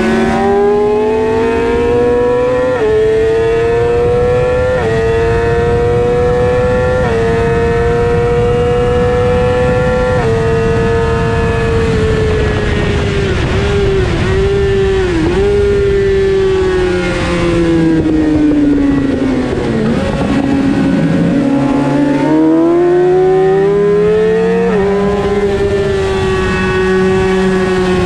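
Suzuki GSX-R600's inline-four engine at racing speed, heard from on board with wind rushing past. It revs up through four quick upshifts in the first ten seconds, each a short drop in pitch, and holds high along the straight. Then the note falls for several seconds as the bike slows for a corner, and it climbs again through another upshift near the end.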